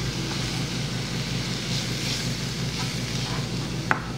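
Chopped green vegetables sizzling in coconut oil in a frying pan as they are stirred with a plastic spatula, a steady frying hiss with a sharp tap of the spatula against the pan near the end.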